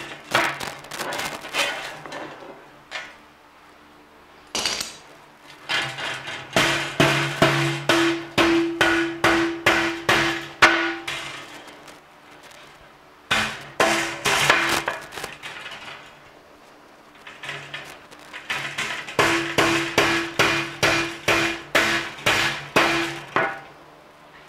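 Hammer blows on the bent-over hooks of steel wire tomato cage panels, closing the hooks to join the panels. The blows come in four runs of about three a second, each leaving a metallic ring, with short pauses between runs.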